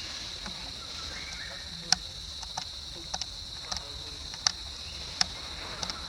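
A steady high-pitched insect drone, with about eight sharp clicks scattered through it.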